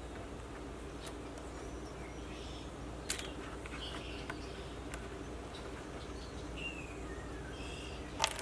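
Birds chirping over a steady low hum, with a few sharp clicks, the loudest about three seconds in and near the end.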